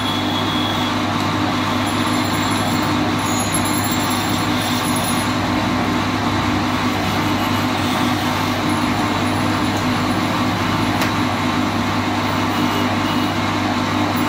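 Wood lathe running steadily while a hand-held chisel cuts a spinning wooden spindle: a constant motor hum under the continuous hiss and scrape of the cut.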